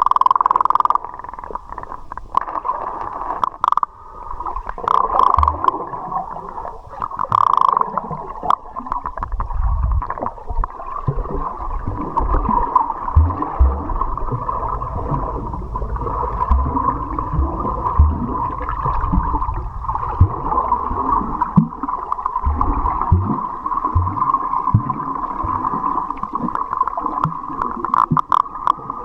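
Muffled rushing and gurgling of river water, with scattered low thumps.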